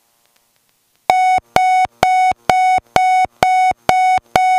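Cockpit avionics aural alert heard through the intercom: a steady mid-pitched beep repeated about twice a second, starting about a second in.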